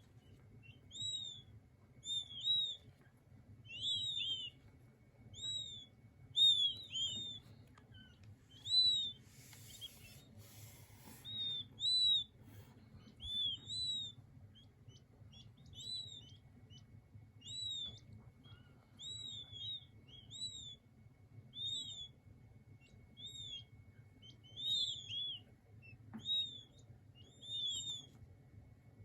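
King quail chicks peeping: short, high, arching cheeps, often in quick pairs, about one a second.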